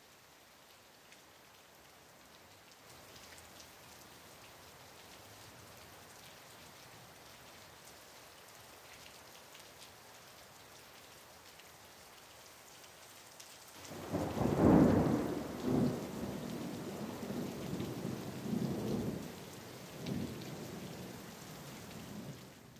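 Steady rain falling, then a thunderclap about two-thirds of the way through that rumbles and rolls in several swells for some seconds before fading back under the rain.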